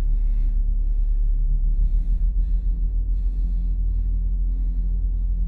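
A woman's quick, gasping breaths, repeating about twice a second, over a steady low droning rumble.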